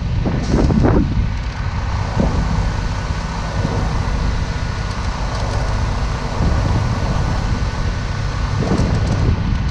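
Heavy diesel truck engine running steadily with a low rumble, with wind buffeting the microphone.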